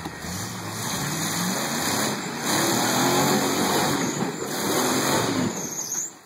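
Rock-crawling Jeep's engine revving under load as it climbs a rock ledge, its pitch rising and falling with the throttle. The sound drops off sharply near the end.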